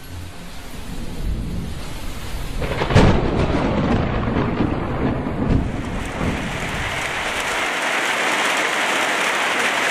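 A thunderstorm with heavy rain. Thunder cracks about three seconds in and rumbles for a few seconds, then the rain settles into a steady hiss.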